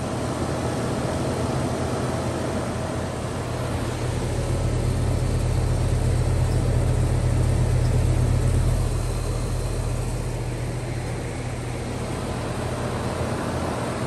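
Outdoor unit of a 2014 Concord 3-ton heat pump running in heating mode: the fan blowing steadily over a low hum, growing louder for a few seconds in the middle.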